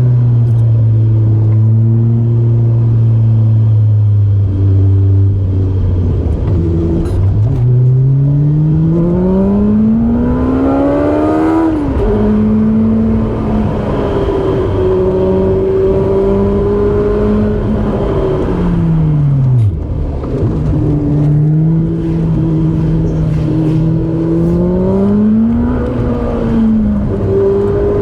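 Honda CR-V's TSX-swapped four-cylinder engine pulling through a series of bends: the engine note holds, climbs steadily for about four seconds, drops sharply at an upshift or lift, then dips sharply again about two-thirds in before climbing once more.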